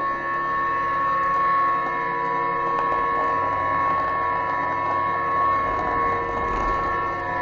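Machinery running: a steady hum made of several held tones under a continuous mechanical clatter, with the low rumble growing heavier a few seconds in.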